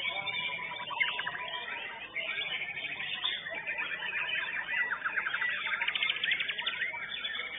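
White-rumped shamas (murai batu) singing: a busy stream of rapid trills, chattering and short whistled phrases from several birds overlapping, with a fast rattling trill in the middle.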